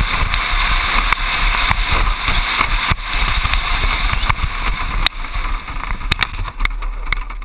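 A soap box gravity racer's wheels rolling fast on asphalt: a steady rushing noise with frequent short knocks and rattles from bumps in the road. The noise drops about five seconds in as the cart slows.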